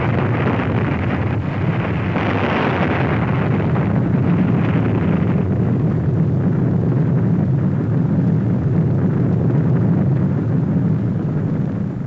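Nuclear explosion sound on an old film soundtrack: a loud, continuous rumble with a hiss on top that dies away over the first few seconds, leaving a steady low rumble.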